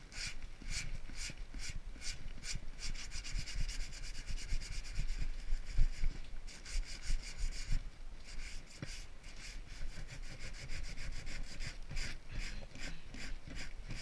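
Sandpaper being rubbed by hand over a wooden board in quick back-and-forth strokes, about three a second, smoothing the surface.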